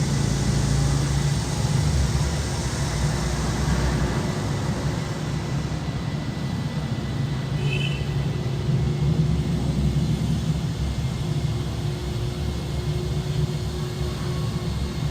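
Steady low rumble of urban vehicle traffic, with a brief high double chirp about eight seconds in.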